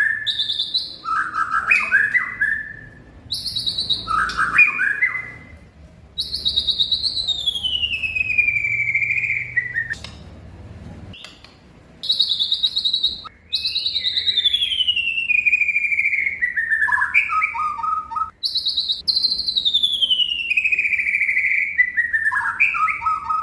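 White-rumped shama (murai batu) singing. A few short, repeated phrases come first, then long clear whistles that slide down in pitch, some ending in quick trills, separated by short pauses.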